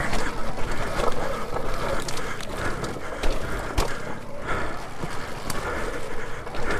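Alta Redshift MXR electric dirt bike ridden over rough, rocky trail: tyres, suspension and chassis rattling and knocking over the rocks, with a sharper knock a little under four seconds in.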